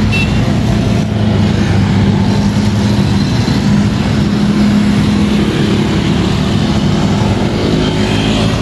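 Road traffic: motor vehicle engines running close by in a steady hum.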